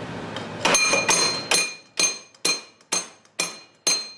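Light hammer taps on steel go-kart rear axle parts, a regular run of about two strikes a second, each with a bright metallic ring, starting just under a second in. The taps are deliberately light to avoid bending the part.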